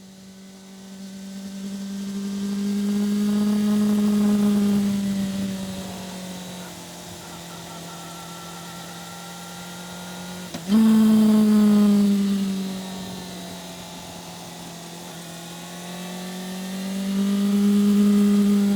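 2005 Yamaha FZ6's inline-four engine running under way, its note swelling and easing as the throttle is rolled on and off. A sudden jump in loudness comes about ten seconds in as the throttle is opened sharply, then the note settles and builds again near the end. It fades in at the start.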